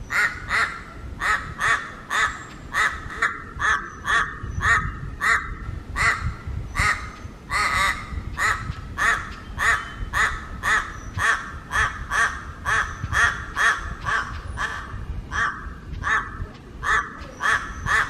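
A crow calling over and over: a long series of short calls, about two a second, each much like the last.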